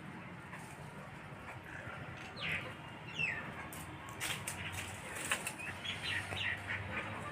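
Small birds chirping, with two downward-sliding calls between two and three seconds in, over a run of short crackling clicks from a squirrel nibbling and handling its food.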